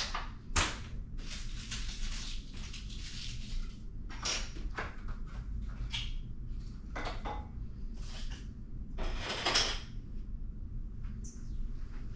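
Clothes and fabric rustling and swishing in an irregular string of bursts as laundry is picked up, shaken and sorted by hand, over a steady low hum.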